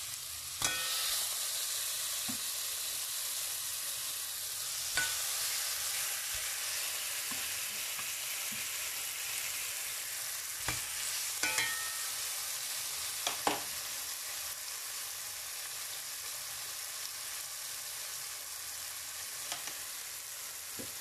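Pieces of lamb sizzling steadily as they fry in hot oil and butter in a non-stick frying pan; the sizzle flares about a second in, and a few sharp clicks and taps come through it.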